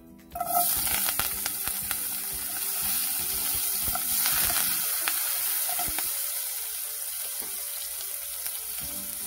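Chopped red onion, curry leaves and green chili hitting hot oil and tempered mustard seeds in a stainless steel pan: a sudden sizzle about half a second in, then steady frying while stirred with a wooden spatula, easing a little toward the end.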